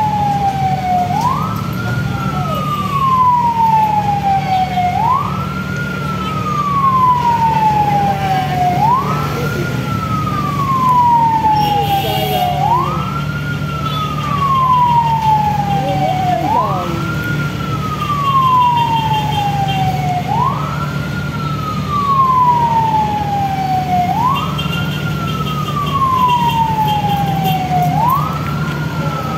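Fire truck siren wailing, each cycle a quick rise in pitch and a slow fall, repeating about every four seconds, over a steady low drone.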